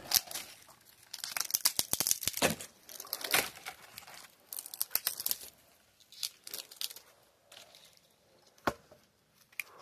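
Thin dry dead branches being snapped by hand: a dense run of crackling twig breaks and rustling for the first five seconds or so, then scattered snaps, with one sharp crack near the end.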